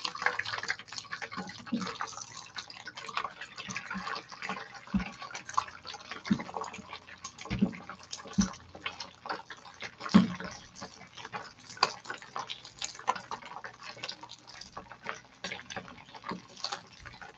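Beaten egg frying in hot oil in an electric skillet, sizzling and crackling steadily with many small pops, with a few soft low thumps in the first half.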